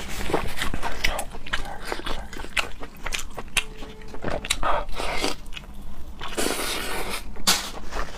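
A person biting and chewing seafood, with irregular crunches and wet mouth clicks.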